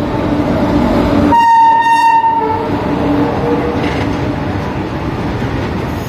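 An Indian Railways WAG-9 electric locomotive sounds its air horn once, a single high note lasting just over a second, about a second in. Under it, the locomotive and its open hopper wagons rumble and clatter steadily past.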